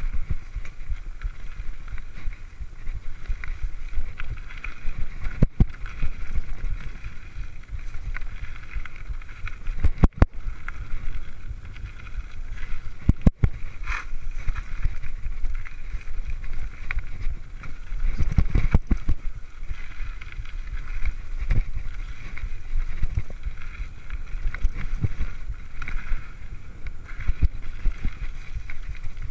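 Mountain bike rattling and rumbling along a dirt singletrack, with wind buffeting the camera microphone and a few sharp knocks as the bike jolts over bumps.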